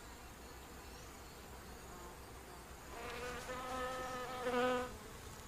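A flying insect buzzing, a steady pitched hum that sets in a little past halfway, swells briefly near the end and then stops.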